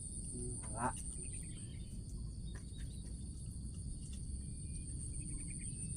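Insects chirring steadily in a continuous high-pitched drone over a low outdoor rumble, with faint bird-like chirps in places.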